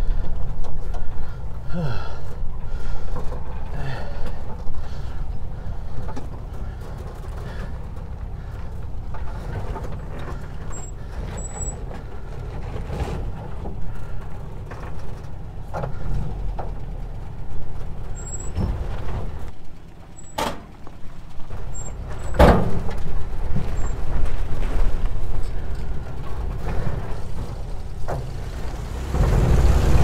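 1950s VW bus with its air-cooled flat-four engine running as it crawls along a rough dirt trail, with a couple of sharp knocks from the body and suspension about two-thirds of the way through.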